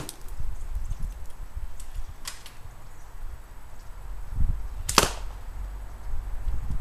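L96 bolt-action airsoft sniper rifle firing: two sharp shots about five seconds apart, with a fainter click between them, over a steady low rumble.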